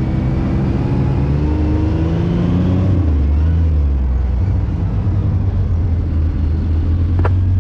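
Side-by-side UTV engine running at low speed while parking, a steady low drone that shifts slightly in pitch a couple of seconds in. A brief sharp click near the end.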